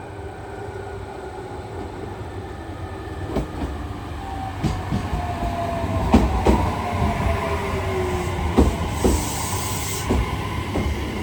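Electric train pulling into the station, its wheels clacking over the rail joints under a slowly falling whine, with a short burst of air hiss near the end.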